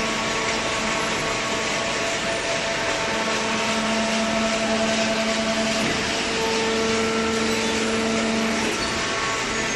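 Hydraulic baler running: a steady mechanical drone with a hum that grows stronger about three seconds in and eases back near the end.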